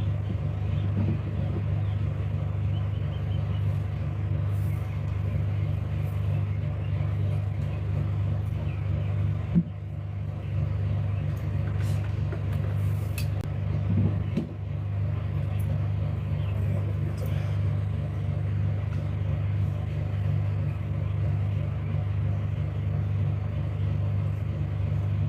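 Steady low hum from a powered sound system switched on with nothing playing, broken by two short sharp pops about ten and fourteen seconds in.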